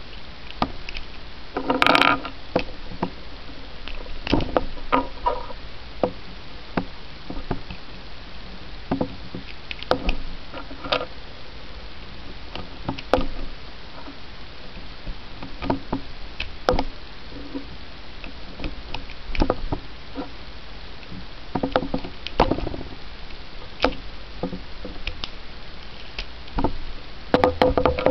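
9mm cartridges being pressed one at a time into a stainless steel pistol magazine: a sharp metallic click each time a round goes in, every couple of seconds, over a steady hiss. A quicker cluster of clicks and clatter near the end as the magazine is handled.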